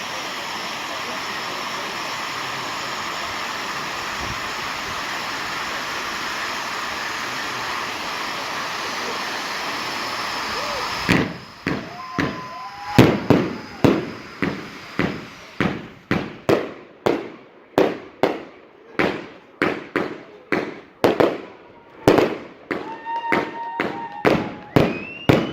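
Steady hiss of burning pyrotechnics that cuts off suddenly about eleven seconds in. A fireworks salute follows: a rapid string of sharp bangs, roughly one or two a second, some trailed by short whistling tones.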